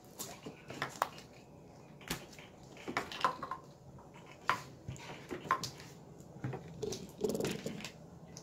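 Plastic slime containers being set down and shifted on a table: scattered sharp clicks and knocks about a second apart, with soft handling noise between.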